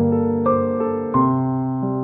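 Slow keyboard music: soft piano chords held and let ring, with new chords struck about half a second and just over a second in.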